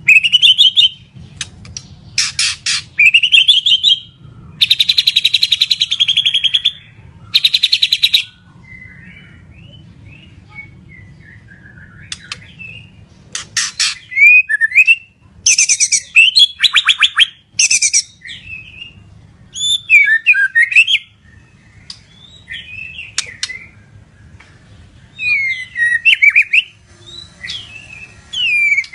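White-rumped shama (Medan-type murai batu) in full song: loud bursts of rapid trilled notes alternate with sliding whistled phrases. There is a softer, quieter warbling passage about a third of the way through.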